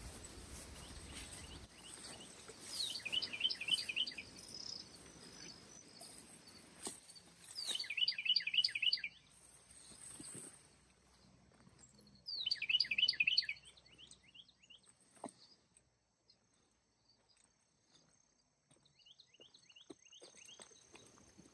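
A songbird singing three loud phrases of quick, down-slurred whistled notes about five seconds apart, with a fainter fourth phrase near the end. Light rustling and clicks of gear being handled come in between.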